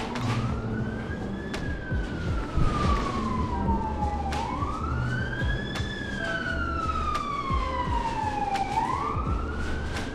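Emergency vehicle siren in a slow wail: each cycle rises quickly, then falls slowly over about four seconds, repeating two and a half times. A low steady rumble and a few scattered clicks lie beneath it.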